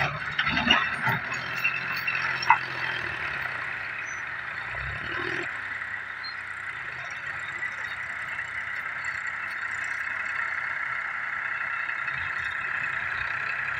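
Diesel farm tractors running at an earth-moving site, with a steady high-pitched hiss and a low engine hum. A few sharp knocks come in the first couple of seconds.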